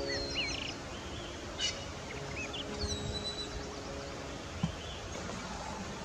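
Steady outdoor background noise with a few short bird chirps and whistles scattered through it, one a longer falling whistle about three seconds in, over faint music.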